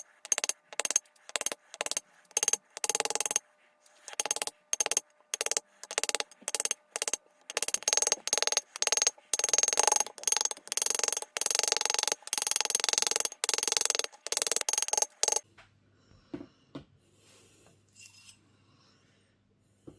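Rawhide hammer tapping an aluminium washer on a stainless steel ring mandrel: a long run of small, even taps, a few a second, each with a metallic ring, to flatten the washer's edge onto the mandrel. The taps stop about three quarters of the way through, leaving a few faint handling sounds.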